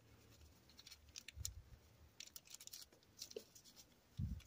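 Faint, scattered light clicks and rustles of hands handling slippery fabric while fastening it along the fold.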